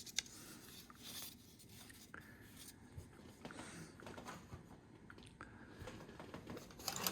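Faint handling noise: light rubbing and a few small clicks as hand tools are picked up and moved.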